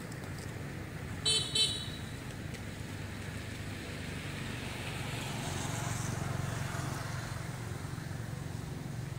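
Steady road traffic rumble with two quick toots of a vehicle horn about a second and a half in; the traffic swells as a vehicle passes near the middle.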